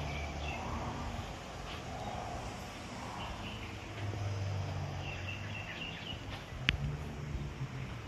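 Background ambience of small birds chirping, over a low steady hum, with one sharp click about two-thirds of the way through.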